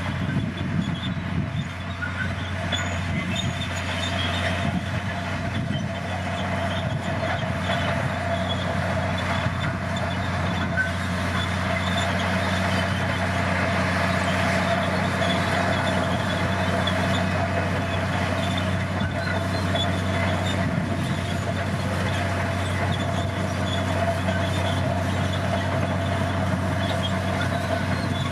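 Komatsu bulldozer's diesel engine running steadily at working revs, a constant heavy machine drone with a fixed engine tone. It is a little uneven for the first few seconds, then holds even.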